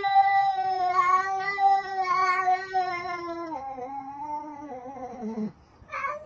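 A domestic cat's long, drawn-out yowl: one unbroken, wavering call that slowly sinks in pitch for about five and a half seconds and then stops, followed by a short second call near the end. It is a threat yowl from a tense face-off with another cat.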